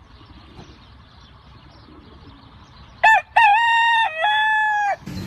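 Rooster crowing once: a long cock-a-doodle-doo starting about three seconds in, after a few seconds of faint outdoor background.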